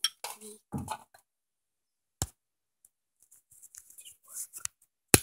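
Handling noise on a phone microphone: two sharp clicks, one about two seconds in and a louder one near the end, with soft rustling and brushing between them.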